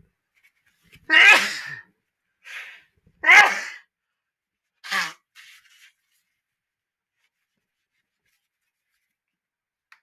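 A person sneezing twice, about two seconds apart, each a loud sudden burst, followed by a few fainter short breaths.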